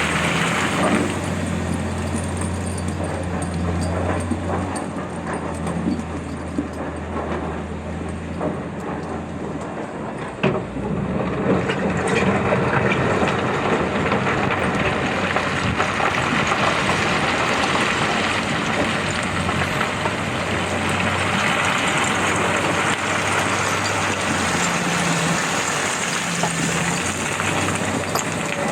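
Heavy diesel earthmoving machine running steadily under load, a continuous low engine hum with mechanical noise over it and a sharp knock about ten seconds in.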